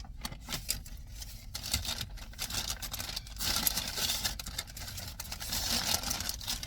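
Paper food bag and wrapper rustling and crinkling as a pretzel is handled and unwrapped, in irregular crackles that grow busier about halfway through.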